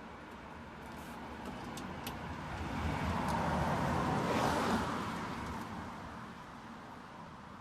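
A vehicle drives past. Its noise swells to a peak about four and a half seconds in, then fades away.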